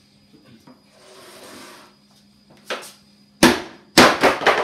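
Wooden TV cabinet being struck and broken apart: a light knock, then two heavy blows about half a second apart, the second running into a quick string of cracks.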